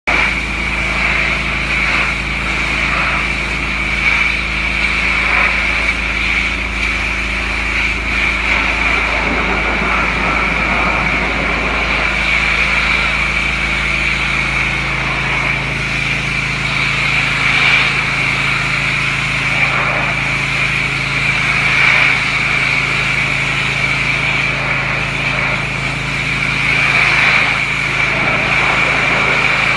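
Gas-engine pressure washer running steadily, with the constant hiss of its spray over the engine; the engine note shifts slightly about ten seconds in.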